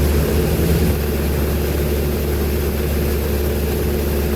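Glastar light airplane's piston engine and propeller droning steadily at power, with a slight drop in level about a second in.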